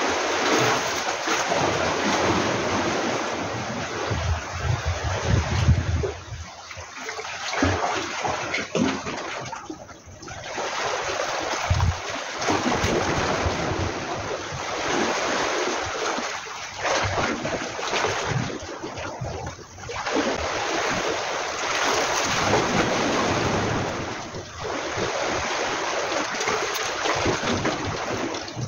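Sea water washing and splashing against a breakwater, the noise swelling and fading every few seconds.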